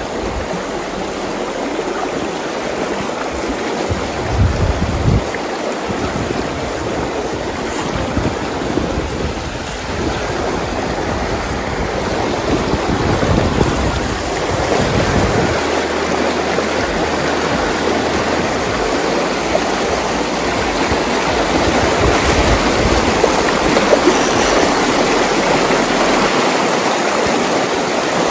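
Shallow, clear river rushing over a rocky bed close to the microphone, a steady rush and burble that grows a little louder in the second half.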